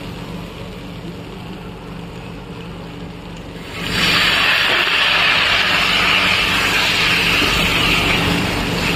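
Spiced black chickpeas frying in a steel kadai: a steady sizzle over a low hum, the sizzle growing much louder about four seconds in and staying loud.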